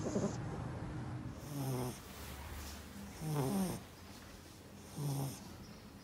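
Yorkshire terrier snoring in its sleep: four snores, each about a second and a half to two seconds apart, with a faint hiss on each breath.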